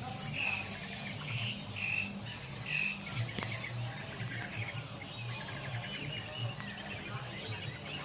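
Many caged songbirds chirping and calling at once, a dense overlapping chorus of short high calls, with one bird repeating a clear note about four times in the first few seconds.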